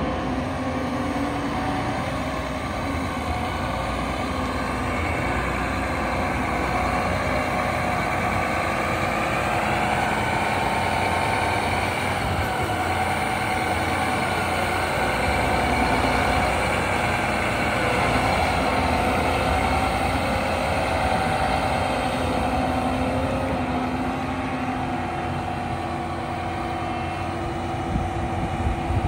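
John Deere 8345RT tracked tractor's six-cylinder diesel engine running steadily as the tractor drives over gravel, its pitch drifting gently up and down with engine speed.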